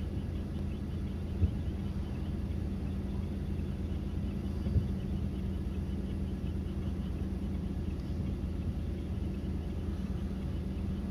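Distant fireworks shells bursting: two dull low booms, about a second and a half in and near five seconds in, over a steady low hum.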